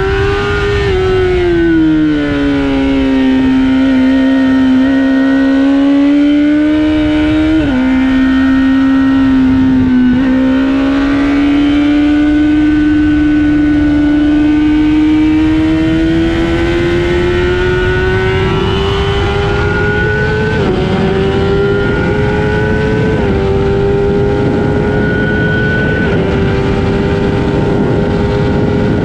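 Honda CBR1000RR Fireblade's inline-four engine at speed on track. Its pitch falls in the first couple of seconds, holds low and steady, then climbs gradually. Near the end there are three quick upshifts, each a short step down in pitch before it climbs again.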